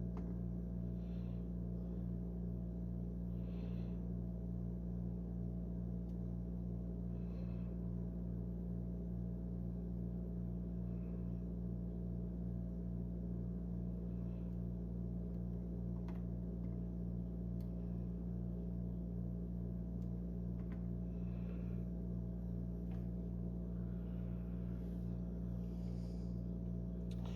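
A steady electrical hum, a low tone with a few overtones, holding level throughout, with a few faint ticks over it.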